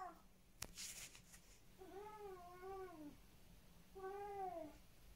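Korat cat meowing twice, faintly: a drawn-out two-part meow about two seconds in, then a shorter one near the end. A brief rustle sounds about a second in.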